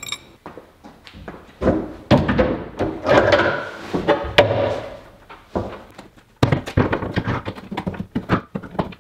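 Irregular knocks and thuds of a plywood sink cabinet being handled, with a busier run of clatter in the middle and a brief lull about six seconds in.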